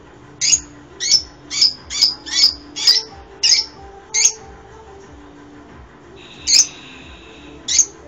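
Lovebirds giving sharp, high-pitched chirps: a quick series of about nine at roughly two a second, then a pause and two more near the end.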